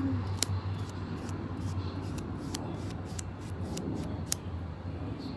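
Paintbrush dabbing and scraping on a painted board: irregular light clicks and scratches, a couple of them sharper, over a steady low hum.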